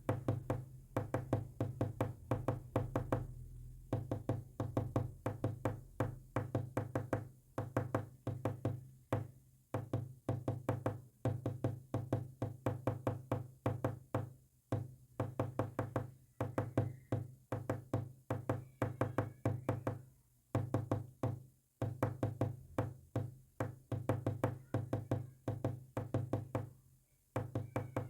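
Rapid knocking, many sharp knocks a second in runs broken by short pauses, tapping out Morse code.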